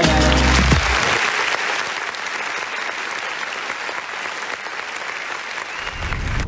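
Applause that rises as the song's last notes end about a second in, then slowly fades.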